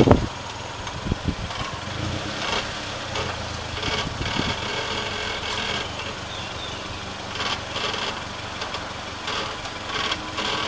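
Suzuki Jimny JB43's 1.3-litre four-cylinder petrol engine running at a low, steady idle as the 4x4 crawls slowly down a rocky step, with scattered short knocks and crunches.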